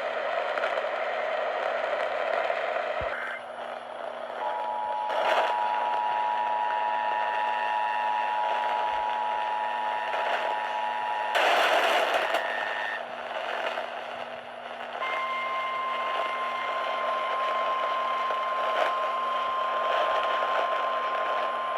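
Emergency Alert System tones received over a weather radio broadcast with a steady hiss of static: a two-tone attention signal held for about seven seconds, a short burst of static, then a single steady alert tone from about halfway on.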